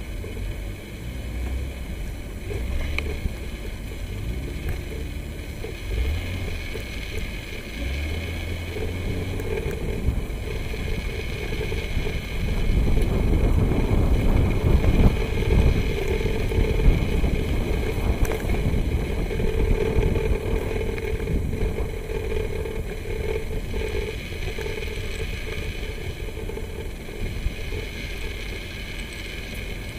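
A vehicle driving along a dirt track, heard from inside its cabin: a steady low rumble of engine and tyres on the dirt, with a steady hum. It grows louder about twelve seconds in and eases off again after about twenty seconds.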